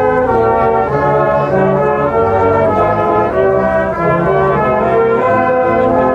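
Brass band playing a tune, several brass instruments sounding together in harmony, the notes changing about every half second.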